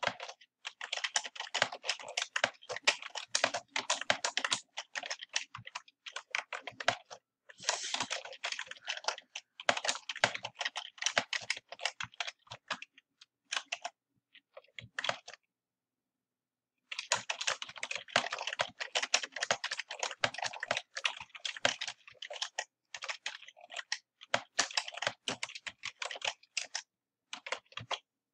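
Typing on a computer keyboard in quick runs of keystrokes, broken by short pauses, the longest about a second and a half just past the middle.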